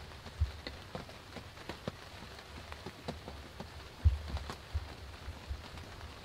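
Rain falling on a fabric hunting ground blind, heard as many small irregular raindrop ticks. A few low thumps sound about half a second in and again around four seconds in.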